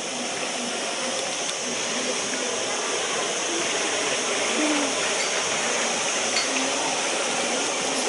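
Steady hiss of rushing water, with faint far-off voices now and then.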